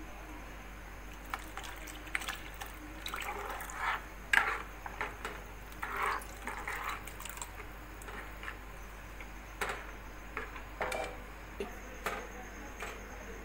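Milk being poured into a kadhai of ground rice paste, splashing in uneven bursts, followed later by a few sharp knocks.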